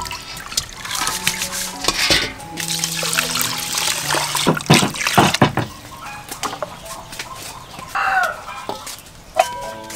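Water pouring and splashing into a pot of rice as it is rinsed by hand, loudest around the middle. A chicken calls briefly near the end, over faint background music.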